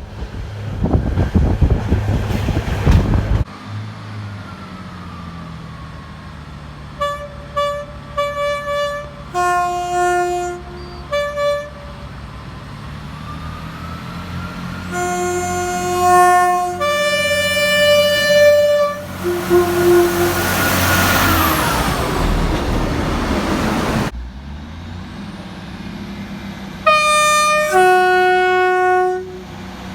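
Train horns sounding in a string of separate recordings. A train rushes past at the start. Then comes a run of quick toots, followed by two-note horn blasts alternating high and low. A longer high-low pair sounds as another train rushes by, and more two-note blasts come near the end.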